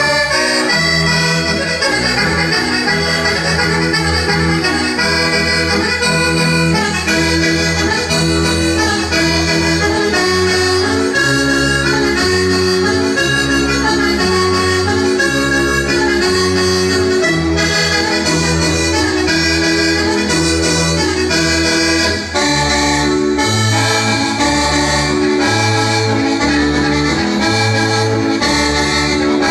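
Sardinian organetto (diatonic button accordion) playing a 'logudoresa seria' dance tune without a break: a running melody over a steady, regularly repeating bass-and-chord pattern.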